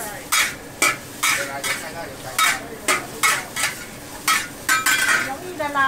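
Metal spatula scraping and striking a wok about twice a second as noodles and egg are stir-fried, over a steady sizzle of frying.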